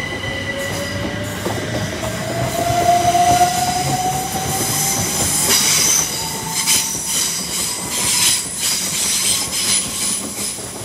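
A Class 379 Electrostar electric multiple unit pulling away: its traction motors give a whine that rises slowly in pitch through the first half. In the second half a run of knocks from the wheels on the track takes over as the carriages roll past.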